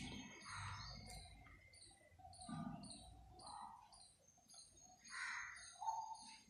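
Faint pen scratching on paper in short strokes as small shapes are coloured in, with faint high chirps repeating about two a second in the background.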